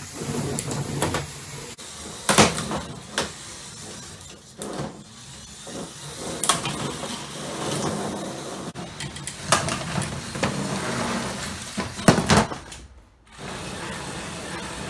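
Small electric motors in LEGO combat robots whirring steadily as the robots push and ram each other on a plywood arena floor. Sharp plastic knocks and clatters mark the collisions, loudest a couple of seconds in and again about twelve seconds in.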